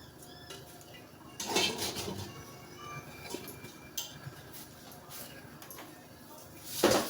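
Clatter of pots, pans and utensils being handled, with a loud burst of clanking about a second and a half in and another near the end.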